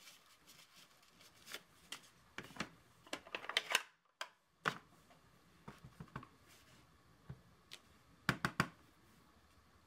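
Light clicks and taps from hands working a clear acrylic stamp, inking it and pressing it onto a paper card, with a little crinkling of clear plastic packaging. Small clusters of quick taps come about three and a half seconds in and again near the end.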